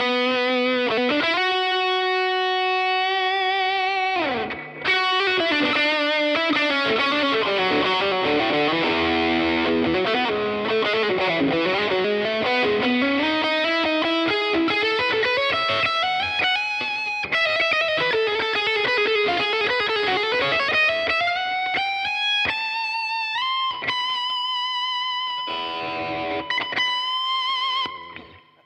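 Overdriven electric guitar played through a Laney CUB-Super 12, a 15-watt all-valve combo with one 12-inch speaker, with the KINK Straya Drive's Tube Screamer-style and Guv'nor-style overdrive sides both on. It plays a singing lead line with sustained notes, string bends and vibrato, and a long held note near the end. A few short choppy chords follow, then it stops abruptly.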